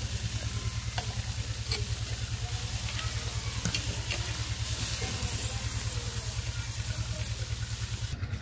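Fish sizzling on the grate of a charcoal-fired clay tandoor, with a few light metal ticks as the pieces are turned with tongs and a spatula. A steady low throbbing hum runs underneath throughout.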